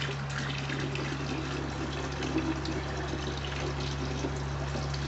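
Water being poured into a polystyrene box of water, splashing and bubbling steadily, over a steady low hum. It is a slow first pour of new water to acclimate a fish to a change in water.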